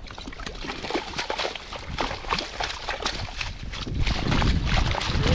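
Water splashing and sloshing in quick irregular bursts as a hooked cutthroat trout thrashes at the surface while being brought in on a fly. A low rumble swells near the end.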